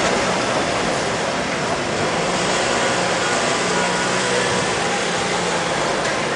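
Steady street noise with a low engine hum running under it.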